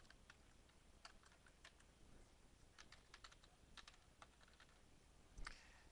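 Faint typing on a computer keyboard: separate keystrokes at uneven spacing as digits are entered, with a somewhat louder click near the end.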